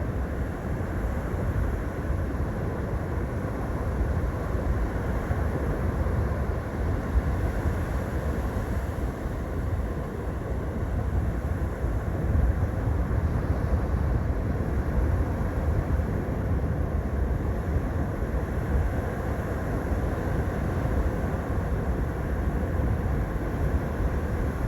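Steady low rumble of ocean surf mixed with wind buffeting the microphone, with no distinct events.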